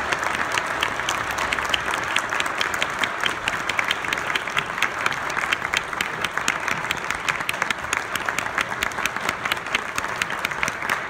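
Audience applauding steadily, many hands clapping at once, for the piano soloist's bow at the end of a performance.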